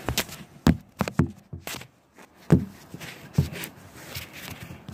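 Several knocks and bumps from a phone being handled and set in place, and a car door being shut hard with a heavy thump about two and a half seconds in.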